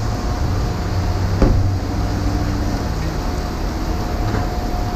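Heavy rain coming down hard, a steady rushing noise over a low rumble, with one brief falling squeak about a second and a half in.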